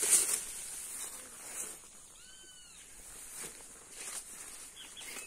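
A single animal call about two seconds in, a clear pitched cry that rises and then falls, lasting under a second, over faint rustling.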